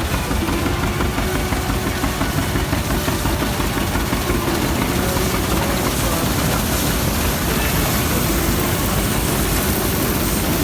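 Heavy engine of a tractor and pull-type combine running steadily during the wheat harvest.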